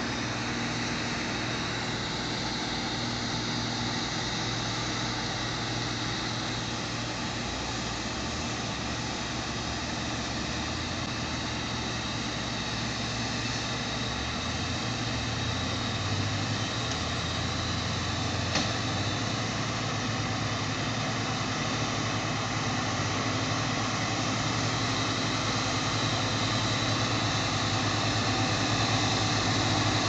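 Heavy log truck's diesel engine running steadily, growing louder over the second half as the loaded truck comes closer. One sharp click about two-thirds of the way through.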